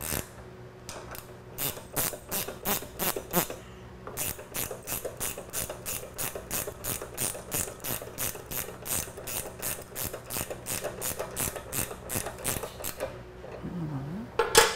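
Ratcheting wrench clicking steadily, about four clicks a second, as a shock bolt is run in on a motorcycle's seat sub-frame, with one louder knock near the end.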